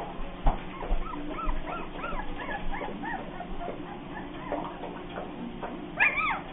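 Young Bernese Mountain Dog puppies whimpering: a run of short, high whines that rise and fall, then a louder yelp near the end. A single sharp knock sounds about half a second in.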